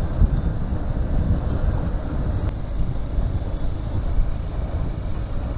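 Honda Hornet 2.0 single-cylinder motorcycle riding along in traffic: a steady low rumble of engine and wind buffeting the microphone.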